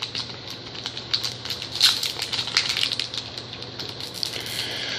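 Foil trading-card pack wrapper crinkling as it is worked open by hand, a run of irregular sharp crackles; the pack is hard to get open.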